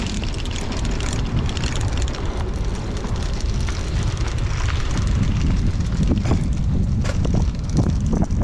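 Wind rushing over the microphone on a moving bicycle, with a steady low rumble and scattered crackles from the tyres on the road.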